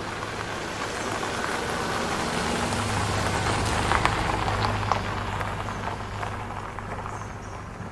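Rain-like hiss with scattered drip-like ticks over a steady low hum, easing off slightly over the last couple of seconds.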